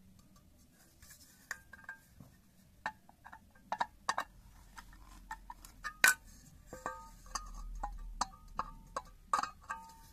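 Irregular metal clinks and taps on a stainless steel bowl as a screwdriver knocks against it, many leaving a short ring. The loudest strike comes about six seconds in.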